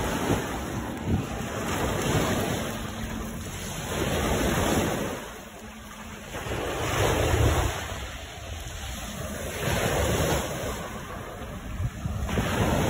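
Small waves breaking and washing up a sandy shore, the rush of surf swelling and easing every few seconds, with wind buffeting the microphone.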